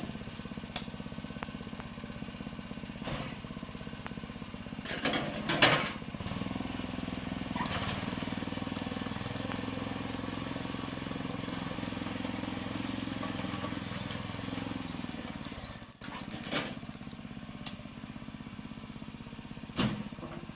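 Small engine of a motorized oil palm fruit carrier running steadily, its note fuller through the middle and dipping briefly about three quarters of the way in. Loud knocks break in several times, about five seconds in, after the dip and near the end.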